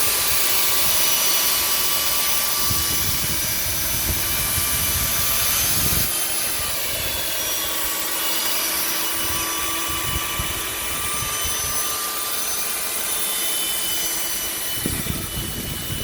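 Steady rushing noise with a few faint constant hums, over irregular low buffeting: wind on the microphone high up on an unfinished high-rise, mixed with distant city and construction machinery noise.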